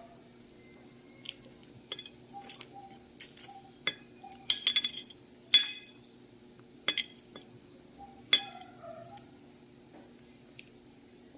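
Someone eating a sugar apple (atis) makes irregular sharp clicks and clinks, about a dozen of them. The loudest come in a quick cluster about halfway through and in one single click a few seconds later, over a faint steady hum.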